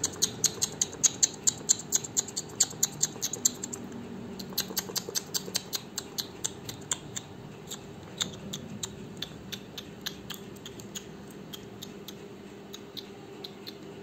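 A pet parakeet on a metal curtain rod making a quick run of sharp clicks, about four a second at first, then sparser and fainter.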